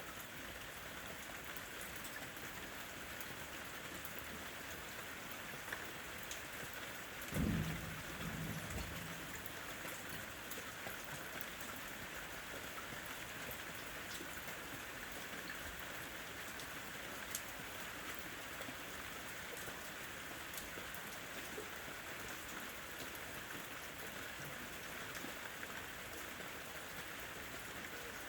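Steady rain falling, an even hiss of drops with scattered individual drop ticks. About seven seconds in, a brief low rumble rises over it for a second or two, the loudest moment.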